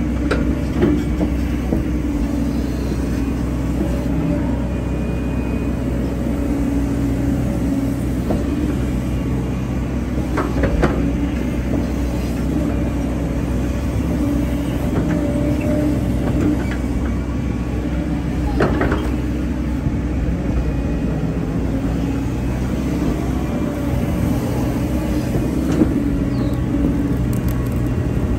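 Hyundai hydraulic excavator's diesel engine running steadily at constant speed while it works, with a couple of short knocks.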